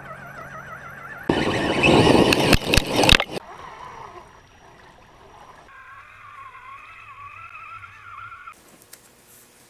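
Radio-controlled scale crawler trucks driving off-road: the electric motors and gears whine, rising and falling with the throttle. A loud, noisy stretch runs from about one to three seconds in. The sound changes abruptly several times where clips are cut together.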